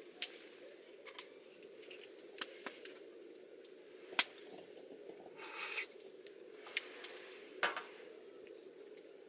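Wood fire crackling, with irregular sharp pops, the loudest about four and seven and a half seconds in, over a steady low hum.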